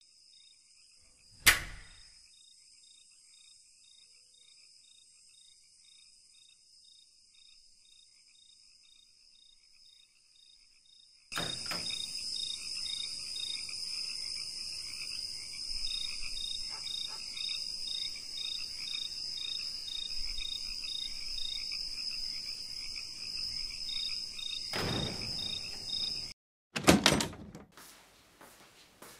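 Night ambience of crickets chirping in a steady rhythm over a high hiss. A loud thump comes about a second and a half in, and a few heavy knocks or thuds near the end.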